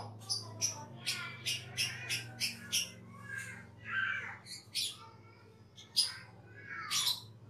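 Asian glossy starling (cucak keling) calling: a quick run of sharp, high, clipped notes, about three a second, then a few lower wavering notes, more sharp notes and a falling note near the end, over a low steady hum.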